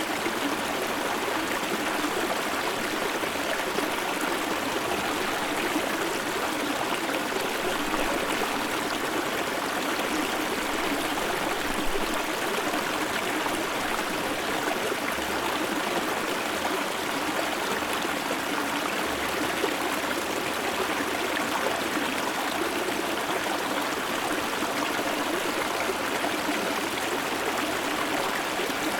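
Shallow river stream flowing steadily over its bed, heard from about half a metre away: an even, unbroken rush and trickle of water.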